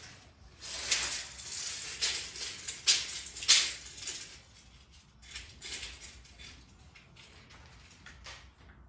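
Short, irregular scrapes and rustles with a few sharp clicks, made as a tape measure and lengths of crown molding are handled on the floor; louder in the first half, fainter after about four seconds. The miter saw is not running.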